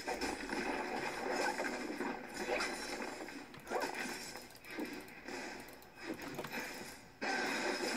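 Computer game sound playing, a busy mix of effects that gets louder suddenly about seven seconds in, with keys being pressed on a membrane keyboard.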